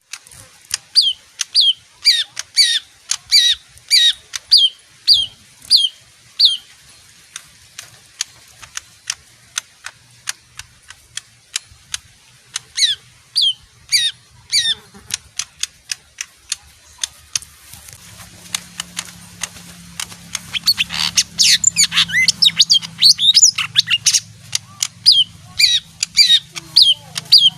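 Leafbird singing: a series of sharp down-slurred whistles about two a second, broken by stretches of fast ticking notes, with a dense, varied warble about two-thirds through. A low steady hum joins underneath in the later part.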